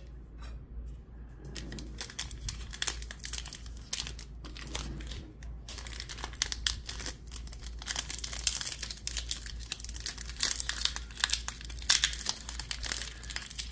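Foil trading-card booster pack crinkling and tearing as it is worked open by hand: a dense, irregular run of crackles that starts sparse and grows louder in the second half.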